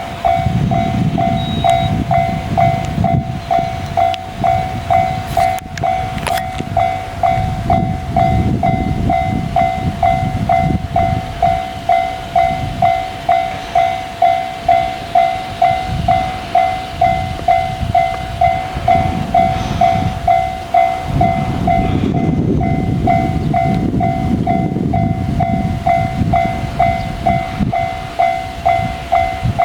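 Japanese railroad crossing alarm in the JR standard electronic tone, ringing steadily at about one and a half beeps a second. Under it a train rumbles through the crossing, its wheel and track noise swelling and fading, loudest about three quarters of the way in.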